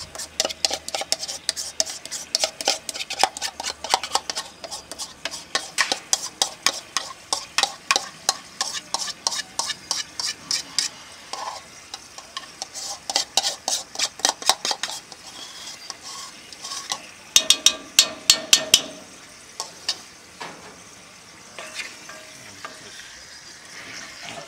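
A spoon repeatedly scraping and knocking against a bowl as thick sauce is scraped into a cast iron dutch oven, about two or three sharp taps a second, with a quick loud run of knocks past the middle. Toward the end it turns into softer scraping of a wooden spoon stirring in the pot.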